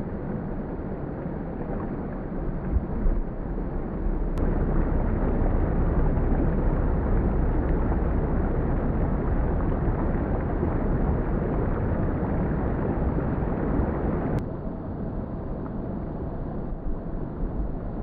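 Shallow rocky stream rushing and gurgling over stones, a steady noise with a low rumble. It grows louder about four seconds in and drops back abruptly about fourteen seconds in.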